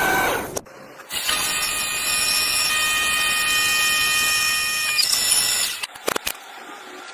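Power tool running with a steady whine for about four and a half seconds, followed by a few sharp clicks.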